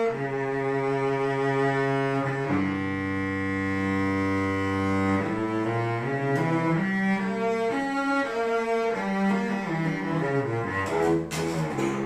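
Solo cello played with the bow, a slow melody played to show the instrument's tone: a long low note held for a few seconds, then a run of shorter notes that falls in pitch near the end.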